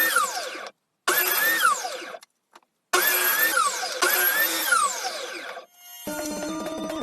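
Electric motor of a homemade grinder whining up and winding down in four short bursts, each rising briefly in pitch and then falling away. Rhythmic music starts about six seconds in.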